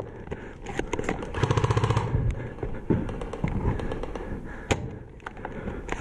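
Airsoft gun firing a short full-auto burst about a second and a half in, a rapid rattle lasting under a second, followed by a few sharp single clicks.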